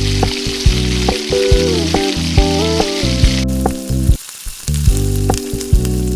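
Food sizzling as it fries in hot oil in a pan, over background music with a steady beat; the sizzle cuts off suddenly about halfway through while the music carries on.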